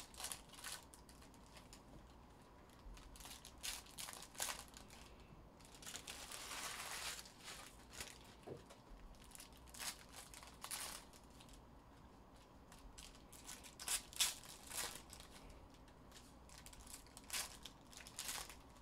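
Foil trading-card pack wrappers being torn open and crinkled by hand: a scatter of short crinkles and rustles, with one longer rustling stretch about six seconds in.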